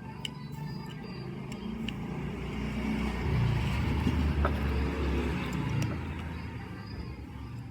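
A motor vehicle passing by: a low rumble that builds to its loudest about three seconds in and fades away over the next few seconds.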